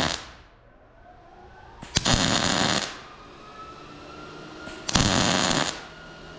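MIG welder making short tack welds, the arc crackling in bursts: the end of one tack right at the start, then two more of under a second each, about three seconds apart.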